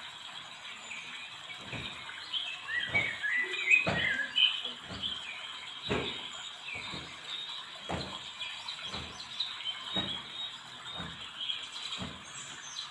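Small birds chirping and twittering in short, quick calls, with soft knocks about once a second underneath.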